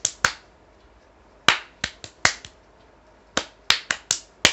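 Sharp hand claps, palm against palm, beating out a kartal rhythm variation in place of the kartal. The claps come in short groups: two at the start, four around the middle and five near the end, with short pauses between.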